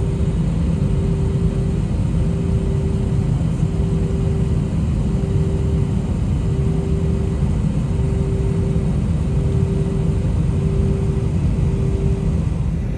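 Airliner cabin noise while taxiing: a steady low rumble from the engines and the rolling aircraft, with a mid-pitched hum that cuts out briefly about once a second.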